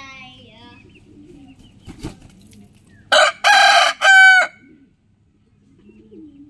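A rooster crowing once, loudly, about three seconds in: a call of three linked parts lasting about a second and a half. Fainter chicken calls come near the start, and there is a short knock about two seconds in.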